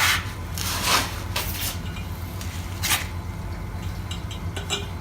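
Metal exhaust parts and tools clinking and scraping as they are handled, with a few sharp clinks in the first three seconds and lighter clicks near the end, over a steady low hum.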